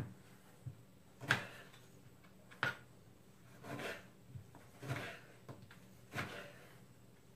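Kitchen knife cutting a tomato on a plastic cutting board: six short knocks of the blade on the board, about one a second.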